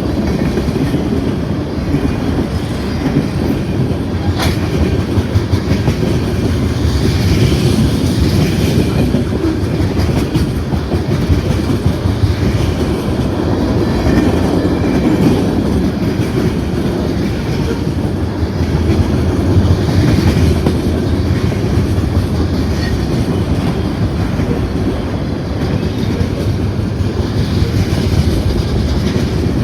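Freight train cars rolling past: a steady, loud rumble of steel wheels on the rails, with occasional sharp clacks.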